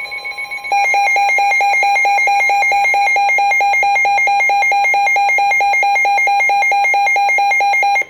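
Weather radio alert alarm: a loud electronic tone that is steady at first and, under a second in, turns into rapid even beeping of several beeps a second. It cuts off abruptly just before the end. A fainter steady warning tone from the Weatheradio broadcast sounds underneath. Together they signal an incoming severe thunderstorm warning.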